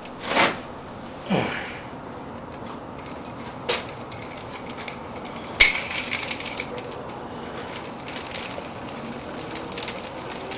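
A few short metallic clinks and clatters of hand tools and nuts being handled on a workbench, with a denser run of clinks a little past the middle and quiet background between.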